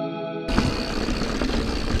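Guitar music cuts off suddenly about half a second in. It gives way to a steady rush of mountain-bike ride noise: wind on an action camera's microphone and tyres rolling over a dirt trail.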